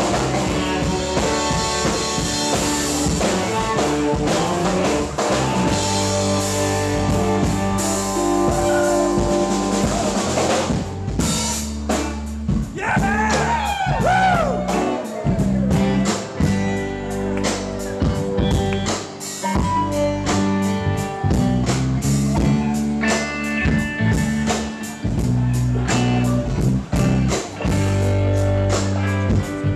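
Live rock band playing: electric guitars over a drum kit, with bending, sliding guitar notes around the middle and a busier drum beat after that.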